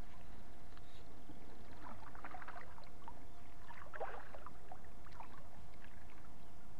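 Kayak paddle strokes dipping and splashing in the water, in clusters about two and four seconds in, over a steady low rumble.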